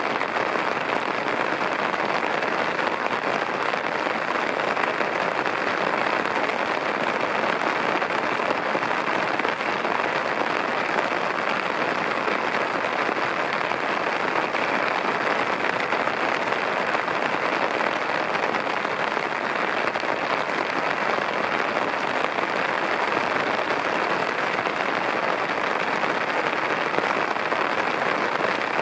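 Torrential rain falling steadily, a dense, even hiss of drops that does not let up.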